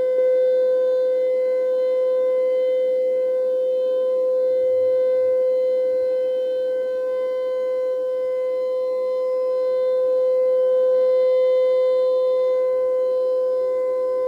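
Civil defense siren sound effect holding one steady pitch, with a slow swell and fade in loudness near the end.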